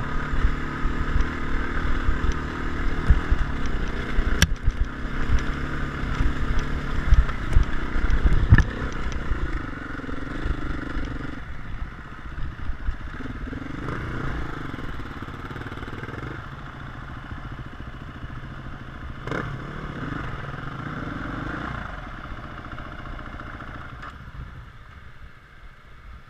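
Enduro dirt bike's engine running under way over rough trail ground, with clattering knocks from the bumps; about ten seconds in the bike slows and the engine drops to a quieter, wavering low-speed note with small blips, quieter still near the end.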